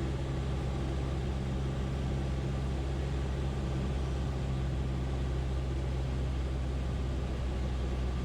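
Piper Cherokee's piston engine and propeller running steadily at low power while the plane taxis, a constant low hum.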